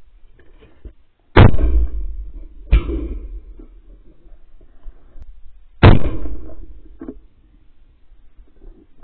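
Three .410 shotgun shots: two about a second and a half apart, then a third about three seconds later, each a sharp report that fades within about a second.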